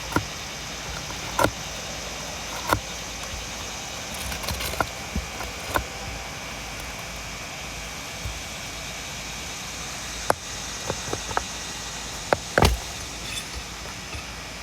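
Scattered sharp clicks and knocks, about a dozen at irregular spacing with the loudest near the end, from a tool working a roofing nail loose under a shingle, over a steady background noise.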